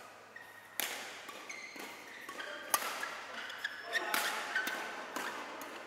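Badminton rally: rackets striking the shuttlecock, several sharp hits about a second or two apart, with short squeaks and the hall's echo between them.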